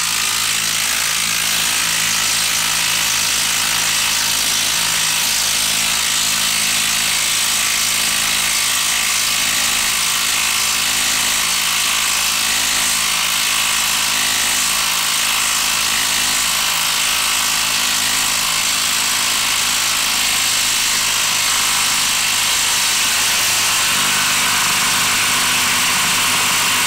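Cordless HART 20V impact driver hammering steadily without a break, driving a 6-inch, 1/2-inch lag screw into a log. The tool is struggling: it lacks the power to sink a 6-inch lag screw, and the screw stalls short of seating.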